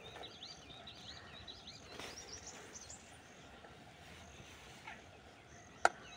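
Small birds chirping in quick runs over a quiet outdoor background, thinning out after the first few seconds. Near the end comes one sharp click of a metal spoon knocking the aluminium cooking pot as stew is served.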